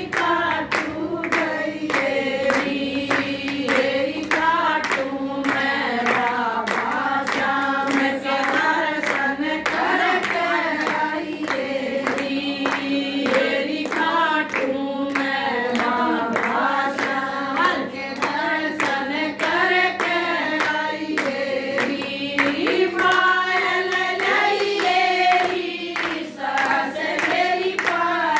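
A group of women singing a Hindu devotional bhajan together, clapping their hands in a steady rhythm.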